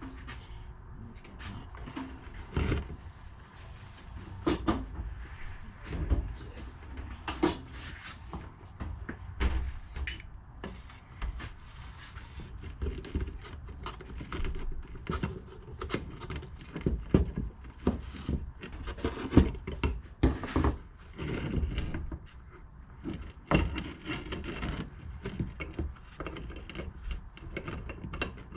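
Irregular knocks, clinks and scrapes of metal parts and hand tools being handled and shifted, as a suspension-mount part is worked into position.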